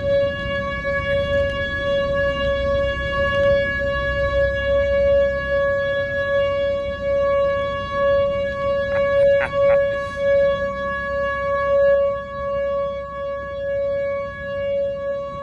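Outdoor tornado warning siren sounding a steady, unchanging tone during a siren test, with a low rumble under it for the first several seconds.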